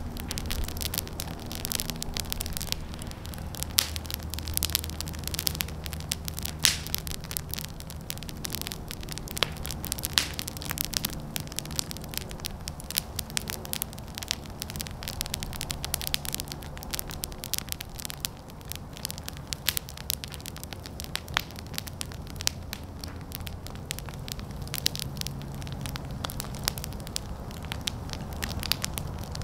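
Fire burning, with frequent sharp crackles and pops over a faint low hum.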